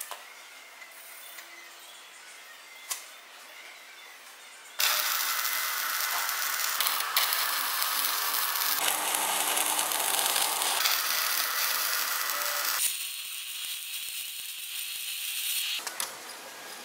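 A couple of faint clicks, then steel being arc-welded, crackling and hissing loudly from about five seconds in. For its last three seconds or so it thins to a higher hiss, then cuts off.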